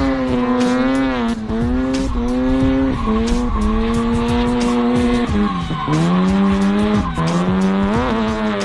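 Bridgeported two-rotor 13B rotary engine on a Holley 600 double-pumper carburettor, running at high revs as the Miata is held in a drift. The revs drop and climb again several times, with one deep dip about six seconds in, over tyres squealing and skidding.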